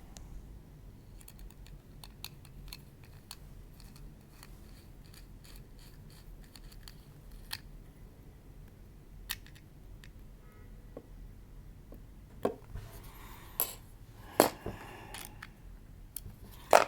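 Faint, repeated small ticks and scrapes of a tiny locking screw being driven into an M.2 NVMe SSD enclosure with a small screwdriver. These are followed in the last few seconds by several louder, sharper clicks as the enclosure is put together.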